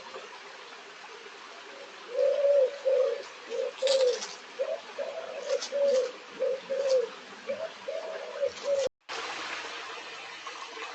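A pigeon cooing a run of about a dozen low, soft coos in repeated phrases over the steady rush of a stream, with a few brief high chirps from a small bird mixed in. The sound drops out completely for an instant near the end.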